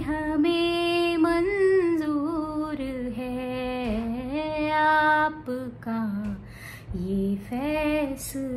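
A woman singing alone and unaccompanied, in long held notes that slide up and down between pitches.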